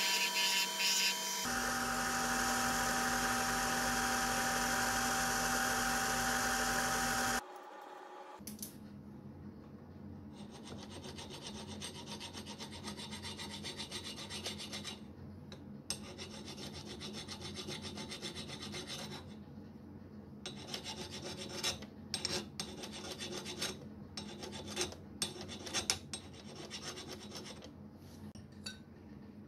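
A small grinding machine with a pink stone wheel runs steadily for the first seven seconds or so, then cuts off. After that, a flat hand file rubs in slow, uneven strokes across the hard-welded contact pad of a Honda TRX 350 rocker arm held in a vise, dressing the pad flat.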